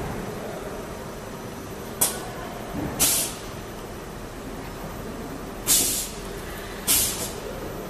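Short sharp hisses of compressed air, four in all, from the pneumatic gripper and valves of a robot loading a CNC lathe, over the machine's steady hum.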